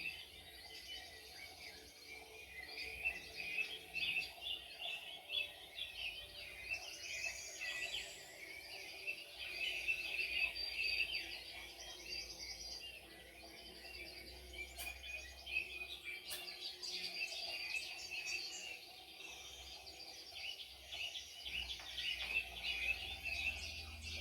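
Many small birds chirping and twittering together in a dense, continuous chorus of short, high calls.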